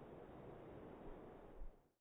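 Faint, steady outdoor background hiss with a couple of soft low thumps, fading out to silence near the end.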